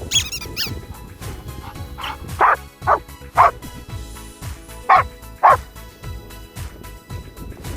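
A dog barking at a dog park, about six short sharp barks in two bunches between two and six seconds in, over background music.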